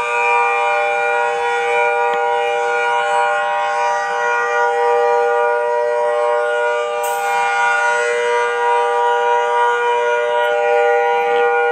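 EOWS 612 electronic outdoor warning siren sounding a steady, held chord of several pitches, without rising or falling, in what the title calls its hurricane signal.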